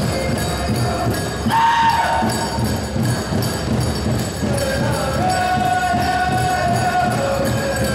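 Powwow drum song: a drum beaten in a steady pulse under high-pitched singing, with bells jingling. A long high sung note comes in about a second and a half in, and another is held from about halfway through.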